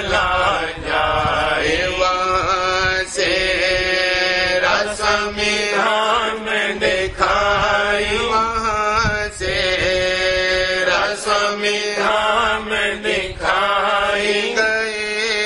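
Devotional chanting of a Radhasoami shabd: a sung voice in drawn-out, wavering notes over a steady low drone.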